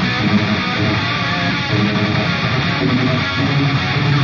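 Rock music with strummed electric guitar, playing steadily.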